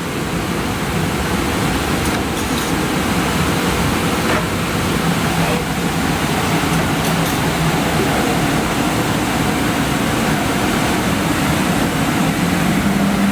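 Koch Sprint MT CNC mortise and tenon machine running through its cutting cycle: a steady, loud whirring noise with a low hum and a few faint clicks.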